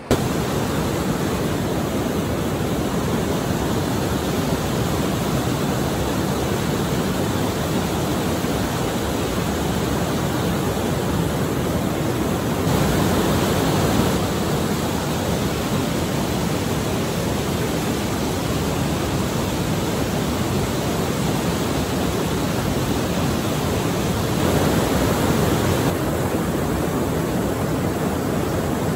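Rushing water of a small waterfall and river rapids, a steady loud roar that swells slightly twice for a second or so.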